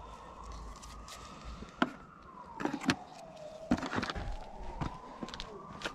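A siren wailing, its pitch slowly rising and falling in cycles of about four seconds, with scattered sharp clicks and knocks of hand work close by.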